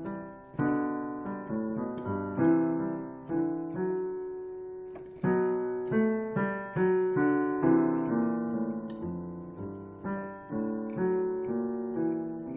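Solo piano playing a slow piece in chords, each struck and left to ring, about one or two a second; the last chord dies away near the end.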